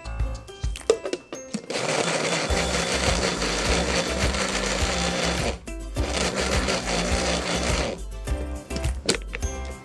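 Electric countertop blender running, puréeing frozen banana slices and milk into a shake. It starts about two seconds in, runs about four seconds, stops briefly, then runs about two seconds more.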